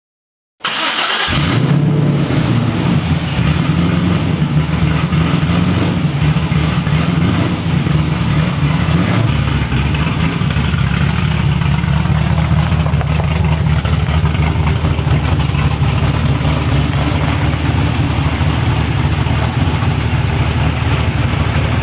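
LS-swapped V8 engine in a square-body Chevrolet C10 race truck starting about half a second in with a brief flare, then running at a loud, steady idle with a deep rumble.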